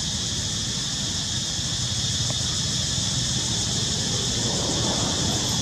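Steady outdoor background: an unbroken high-pitched insect drone over a low rumble.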